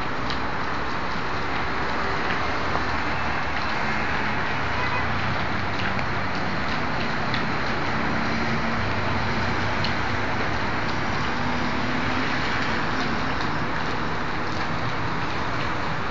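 Large fire burning: a steady rushing noise with scattered cracks and pops, and a low engine hum joining in the middle.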